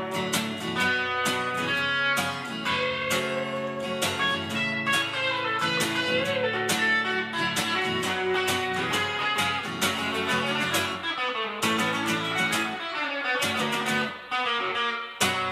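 Steel-string acoustic guitar strumming a steady rhythm under an electric guitar playing lead lines with bent notes, with no singing. The playing thins out briefly near the end before a hard strum comes back in.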